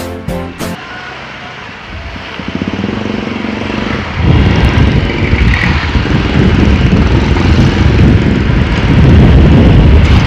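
A music jingle ends in the first second, then a Honda Airblade 150 scooter's single-cylinder engine hums and picks up speed. From about four seconds in, loud wind rush on the action-camera microphone covers most of the engine.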